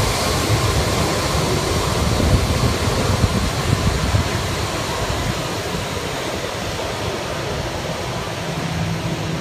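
Airbus A340's four jet engines running as the airliner turns onto the runway to line up for takeoff: a steady rushing roar that gradually eases a little.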